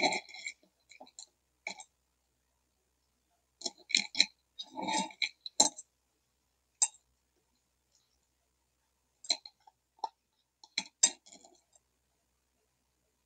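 Dry chunks of edible clay clinking and rattling as fingers stir through them, heard as short rattles separated by silent gaps. The headset microphone's failure garbles them into gurgling, burp-like noises.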